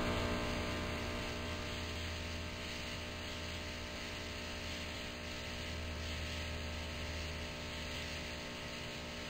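Steady electrical hum of a bug zapper: a low drone with many overtones, easing down slightly in loudness.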